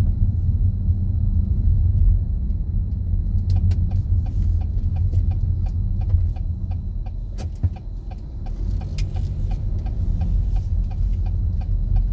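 Steady low rumble of a car driving, with a regular light ticking, about three a second, starting a few seconds in.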